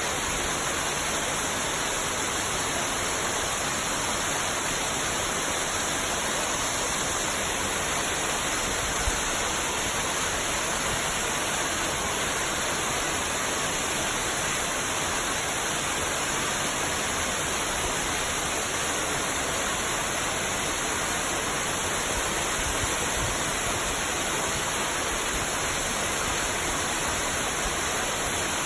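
Steady, unbroken rush of falling water from the Uchar waterfall, a large mountain waterfall, at an even level throughout.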